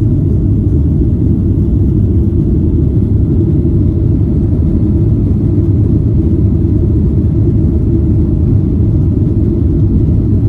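Airliner cabin noise heard from inside the cabin: a steady, even low rumble of the jet's engines and airflow.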